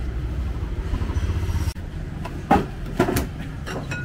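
Low rumble of passing traffic that fades about two seconds in. Then come two sharp knocks about half a second apart.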